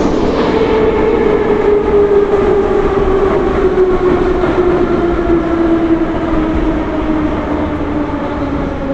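Moscow metro train heard from inside the car: the traction motors whine with a pitch that falls steadily as the train slows, over continuous wheel and rail rumble.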